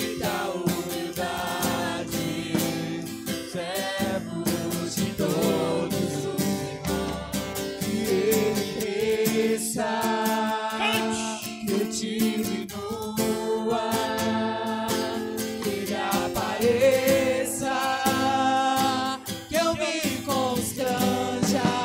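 Worship song: a voice singing a slow melody over guitar accompaniment.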